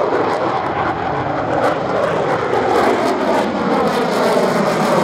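F-35A fighter jet making a fast pass into a tactical pitch, its Pratt & Whitney F135 turbofan a loud rushing jet noise. Bands in the noise sweep down in pitch as it goes by, and it grows louder near the end.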